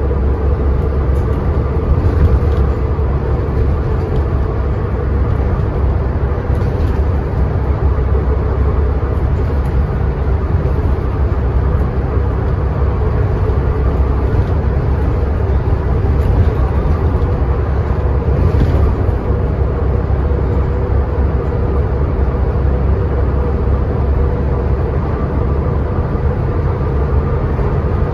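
Scania N94UD double-decker bus engine and ZF Ecomat five-speed automatic gearbox running steadily under way, a constant drone with a couple of steady tones and a few light rattles.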